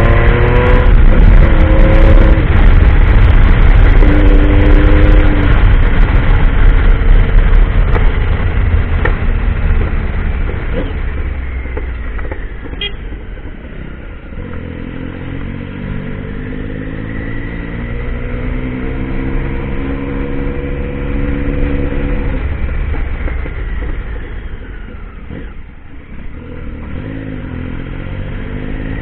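Triumph Tiger adventure motorcycle engine being ridden off-road, its pitch rising and falling as it accelerates and eases off. A heavy rumble with scattered clicks in the first third, then quieter, climbing slowly, dropping near the end and picking up again.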